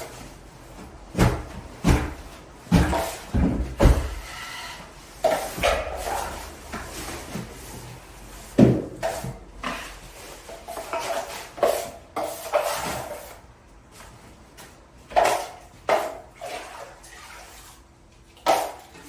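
Irregular knocks, clanks and scrapes of a joint-compound bucket and drywall tools being handled, loudest in the first few seconds.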